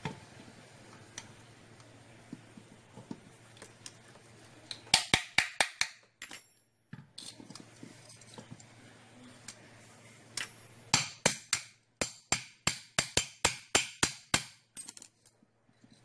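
Sharp metal-on-metal taps on a washing machine spin motor's brake shaft assembly: a quick run of about six strikes about five seconds in, then a longer run of about fifteen at roughly four a second in the second half.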